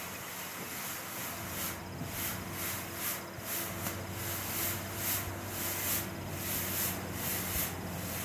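Coloured smoke ball burning with a hiss that surges and sputters in uneven puffs, about two a second, over a low steady hum.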